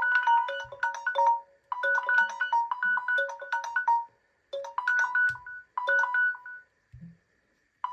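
A Samsung phone's alarm tone: a short melody of bright chime-like notes, repeating with brief gaps and stopping about two-thirds of the way through. Two soft low taps follow near the end.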